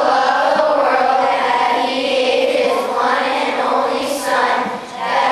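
A choir of fourth-grade children singing together in Filipino, with a short break between phrases near the end.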